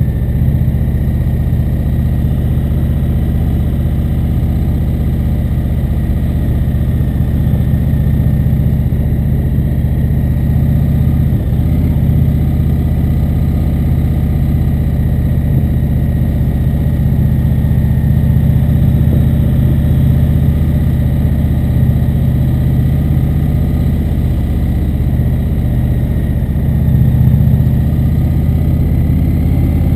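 Indian motorcycle's V-twin engine running steadily under the rider, picked up by a camera mounted on the bike. It gets a little louder briefly near the end.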